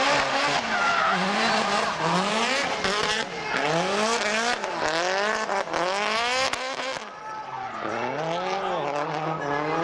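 Nissan Silvia S15 drift car sliding sideways through a drift, its engine revving up and down over and over as the throttle is worked, over the screech of spinning, smoking rear tyres. About seven seconds in the engine drops away briefly, then climbs again.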